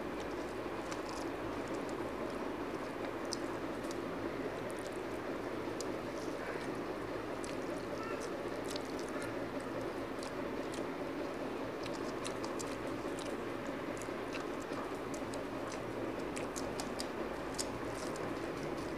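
Hand-eating from a steel plate: irregular small wet clicks of chewing and of fingers mixing rice, over a steady background hiss.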